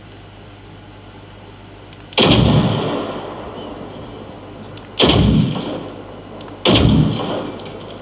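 Three gunshots from a scoped semi-automatic rifle in a video game, each followed by a long echoing tail. The first comes about two seconds in, and the last two come less than two seconds apart.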